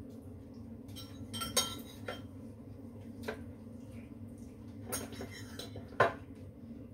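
Spoons and hands clinking against ceramic plates at a dinner table: a few separate sharp clinks, the loudest about one and a half seconds in and again near the end, over a steady low hum.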